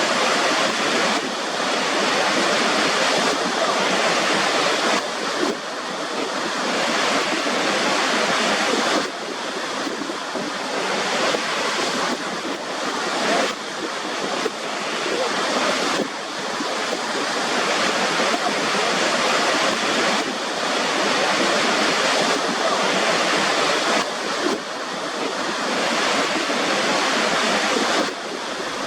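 Rushing water: a dense, steady hiss with little low rumble, shifting abruptly in level every few seconds.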